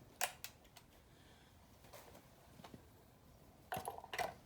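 A few faint clicks and knocks in a quiet room: several light ones in the first second, a couple more in the middle, and a short cluster of louder knocks near the end.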